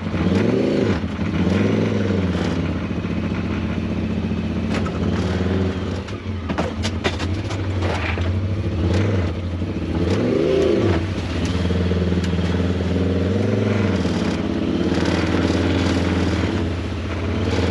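Side-by-side UTV engine running under load, its revs rising and falling a few times. Sharp knocks and clatter from the machine over the trail come through around the middle.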